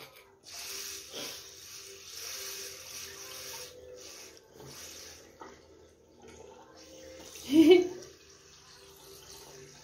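Water from a bidet tap running into the ceramic bowl, strongest in the first few seconds, then lighter and uneven as the tap is worked. A toddler gives a brief laugh near the end.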